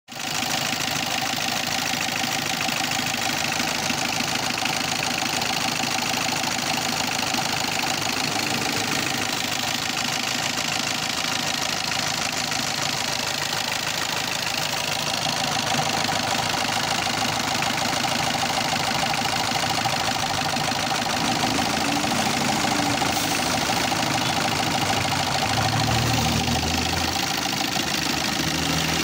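Old diesel engine idling steadily, with a knocking noise from inside the engine.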